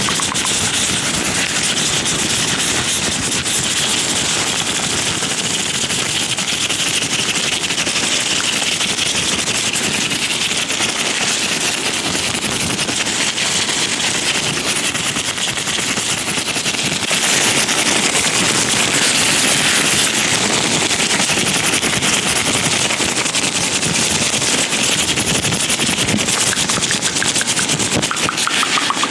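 Latex-gloved hands rubbing, squeaking and fluttering right against the microphone, giving a dense, continuous crackle of rapid little clicks. It grows a little louder about halfway through.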